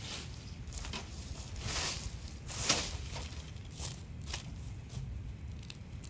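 Soft, scattered rustles and crackles, like dry leaves or handling, over a low rumble of wind on the microphone.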